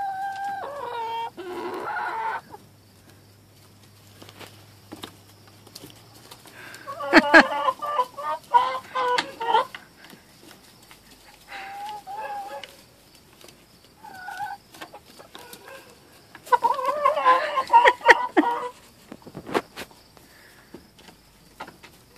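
Domestic hens clucking and squawking in several separate bursts, the busiest about a third of the way in and again near the end, with quiet gaps between.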